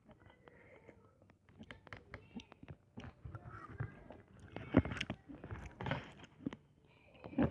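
A person chewing instant ramen noodles, with scattered short mouth clicks and a few louder bursts of eating noise about five and six seconds in.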